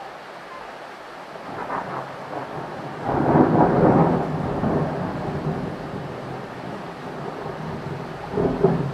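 Thunder over steady rain: a rumble builds about a second and a half in, is loudest around three to four seconds in and rolls away slowly, and a second, shorter burst of thunder comes near the end.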